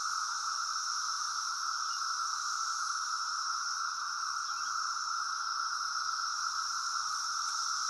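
Chorus of many cicadas singing together: a steady, unbroken drone with a lower and a higher band of buzzing layered over each other.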